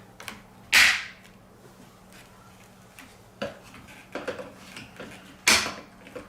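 Balls rolling and clacking down a TrixTrack wave-slope marble run: two loud clacks, one about a second in and one near the end, with a run of smaller clicks in between.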